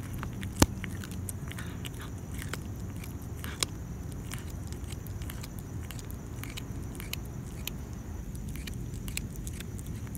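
A cat chewing a rat head-first, with irregular sharp crunches of bone. The loudest crunch comes about half a second in and another about three and a half seconds in.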